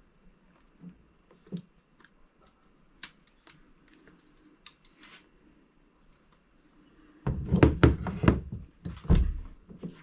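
Handling knocks on a hollow plastic kayak deck. There are scattered light clicks and taps, then, about seven seconds in, a couple of seconds of loud clattering thunks as tools and parts are moved about.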